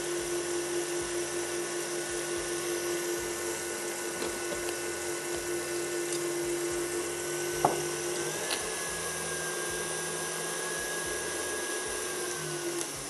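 Electric stand mixer running at a steady speed with a constant motor whine, beating egg whites to a meringue. A sharp click comes a little past halfway. Just before the end the motor winds down, its pitch falling as it is switched off.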